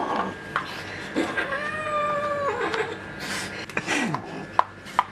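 A cat caterwauling: one long drawn-out yowl, held on one pitch for about a second and falling at its end, with a shorter falling cry later and a few sharp knocks around them.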